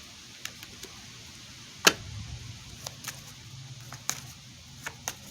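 Handling of reading cards: scattered light clicks and taps, with one sharper snap about two seconds in.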